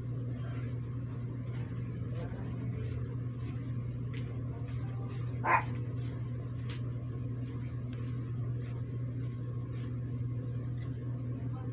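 Steady low background hum with faint scattered ticks, and one short, sharp sound about five and a half seconds in.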